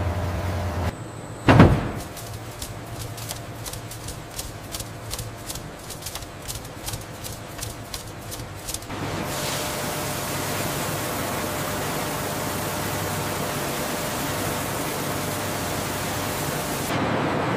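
Mill machinery sounds in sequence. One heavy thump about a second and a half in. Then a vibrating bagasse screen rattling with regular ticks about three times a second. From about nine seconds in, a steady rush of water sprays washing the fiber.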